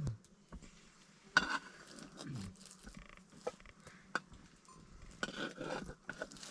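Scattered clinks and knocks of cooking utensils, the loudest about a second and a half in, with a short livestock call falling in pitch about two seconds in.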